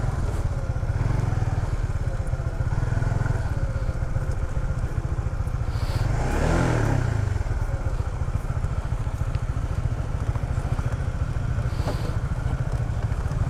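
Honda CBR150R's single-cylinder engine running at low speed as the motorcycle rolls slowly across dirt ground, steady throughout.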